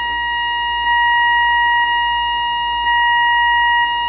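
A steady beep-like audio tone plays through a pair of amplified computer speakers. A diode signal-steering circuit, toggled by an Arduino, switches it back and forth between the right and left speaker about once a second, and its loudness steps at each switch.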